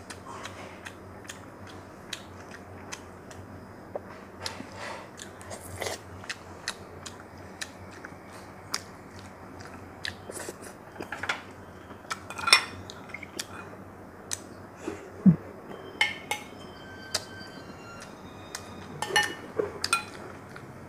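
Close-up eating sounds: chewing and mouth noises, with scattered clinks of chopsticks and a metal spoon against glass bowls.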